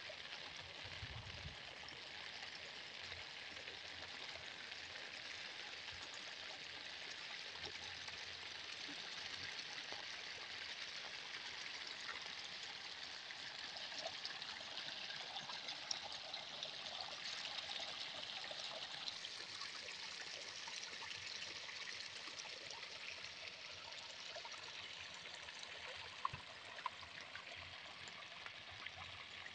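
Muddy floodwater flowing and trickling through a gap in a grassy rice-paddy bank: a steady rushing hiss that swells a little midway, with a couple of faint ticks near the end.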